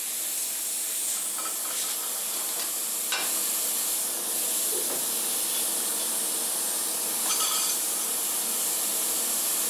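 Steady hiss of air at a plasma cutting table, with a few faint clinks and scrapes as thin steel pieces cut from an old handsaw are handled on the slats.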